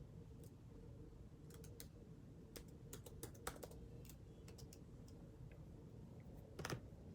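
Scattered light clicks and taps over faint room tone, a cluster of them a couple of seconds in and one louder click near the end.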